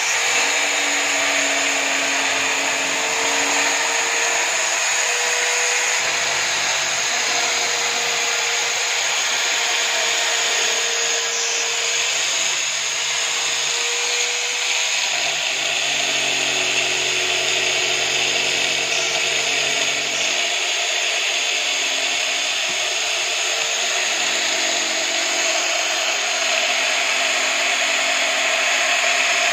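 Electric drill clamped upright as a homemade drum sander, its motor running steadily with a high whine while fibreboard is sanded against the drum.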